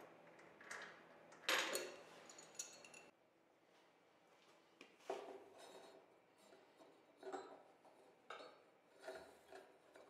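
Faint, scattered metallic clinks and rattles of hand work on a bandsaw: a wrench on the nuts and washers bolting the saw down, then a link belt being fitted over the drive pulley. The loudest clink comes about a second and a half in.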